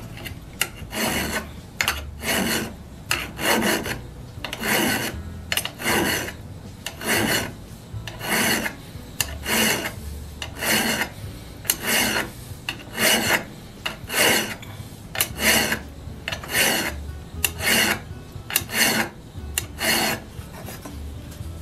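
Flat hand file rasping across the radial cutting edge of an antique steel auger bit, steel on steel, in slow even strokes about one a second, sharpening the lip right over to the pilot thread. The strokes stop near the end.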